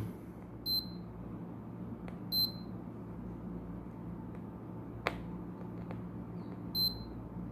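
A multimeter in diode-test mode gives three short, high beeps as its probes touch the pins of a new bridge rectifier. A single sharp click comes about five seconds in. The display reads about 0.53 V forward and OL in reverse, the sign of healthy junctions with no short.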